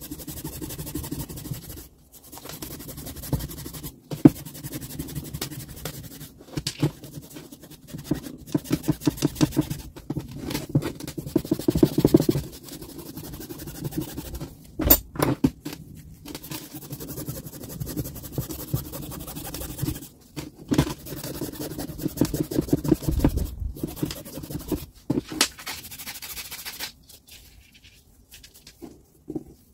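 Hand work on a grinder part: rapid repeated scratching and scraping strokes in bursts, with a few sharp knocks in between.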